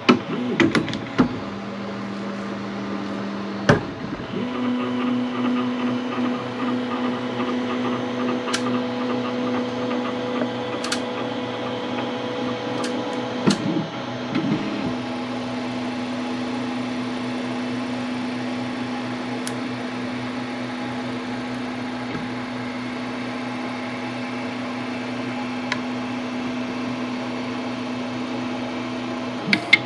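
Sidewinder 3D printer starting a print: its stepper motors hum at steady pitches while the print head travels down to the bed, the pitch changing about four seconds in and pausing briefly midway, over the steady hum of its cooling fans, with a few sharp clicks.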